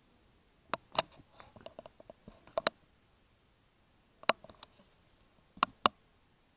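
Sharp clicks, mostly in quick pairs, in four groups a second or more apart, with fainter ticks between them.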